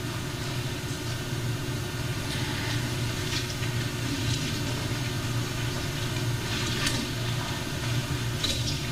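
Steady low hum of room or recording noise, with a few faint, brief rustles of paper as the pages on the lectern are handled.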